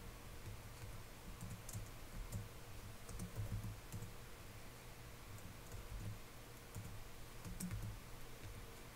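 Faint computer keyboard typing: scattered, irregular keystrokes over a low background hum.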